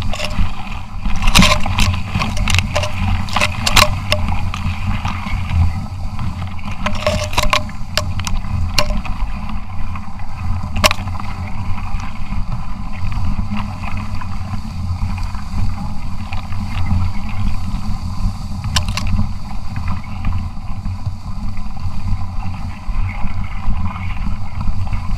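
A 29er mountain bike pushing through tall grass and weeds, heard from a camera mounted on the bike: a steady low rumble, with grass stalks swishing and clicking against the bike and camera. The clicks come thickly in the first few seconds and again around eight seconds in.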